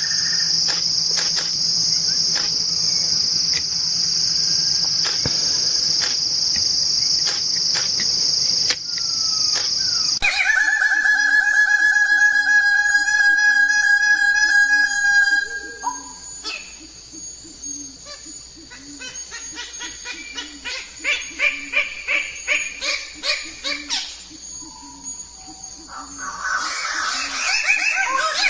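Insects calling steadily in a continuous high trill for about ten seconds. The sound then changes abruptly to a lower, steady pitched trill, and after that to quieter, rhythmic pulsed chirps, with a busier burst of calls near the end.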